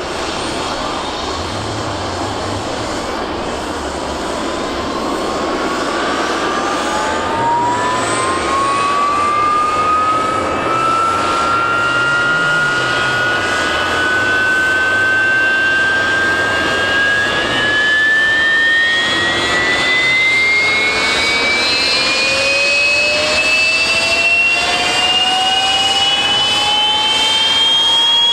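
Harrier's Rolls-Royce Pegasus turbofan spooling up on start: a whine climbs steadily in pitch over a rushing noise, a second, lower whine joins and rises about two-thirds of the way in, and the sound grows gradually louder.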